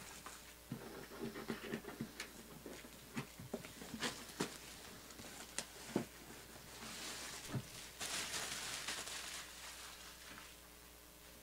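Plastic shrink-wrap being torn and peeled off a cardboard hobby box, with scattered light clicks and taps as the box is handled and a longer crinkling rustle about seven seconds in.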